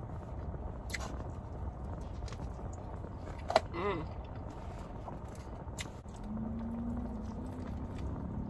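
Close-up chewing and mouth clicks of someone eating a chicken sandwich, over the steady low rumble of a car. There is a sharp click and a short hummed voice sound about halfway through, and a steady drone comes in about six seconds in.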